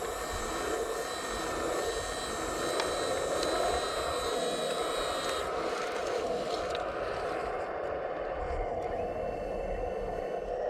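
Steady whine of a scale RC hydraulic excavator's pump running, wavering slightly in pitch as the machine works, with a few light ticks.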